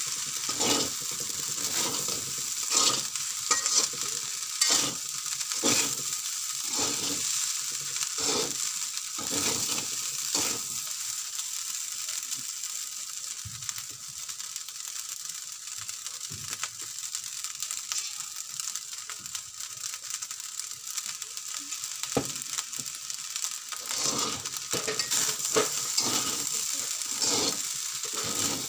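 Chicken fried rice sizzling in a metal wok, with rhythmic scraping and tossing strokes of a metal spatula about one and a half a second. The strokes stop about ten seconds in while the sizzle goes on, and start again near the end.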